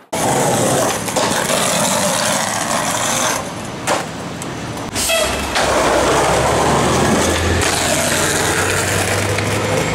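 Skateboard wheels rolling hard over concrete, a loud steady rumble broken by a few sharp clacks of the board, with a quieter stretch in the middle.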